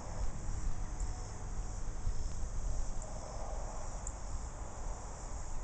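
Steady high-pitched chorus of insects from the grass, with a few faint ticks in it, over an uneven low rumble.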